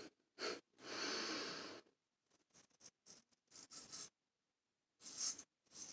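Large straight razor scraping through lathered stubble on the cheek: a series of short strokes with pauses between them, one longer stroke about a second in.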